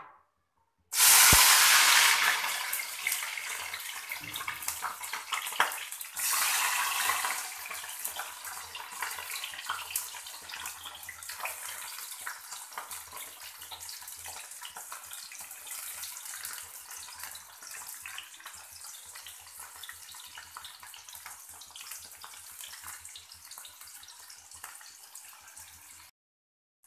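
Chopped cauliflower and carrot hitting hot oil in a kadai and frying: a loud sizzle starts suddenly about a second in, surges again around six seconds, then settles into a steady quieter sizzle that cuts off abruptly near the end.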